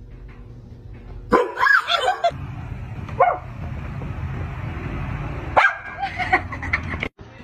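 A dog barking in short outbursts, once about a second and a half in and again in a cluster near the end, over a steady low hiss.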